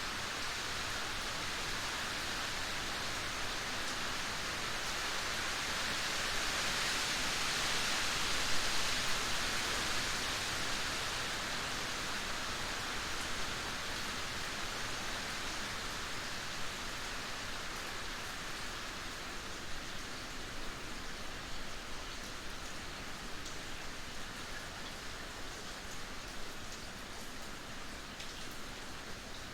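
Steady rain falling: an even hiss that swells to its loudest around eight seconds in, then eases slightly, with separate drops standing out more toward the end.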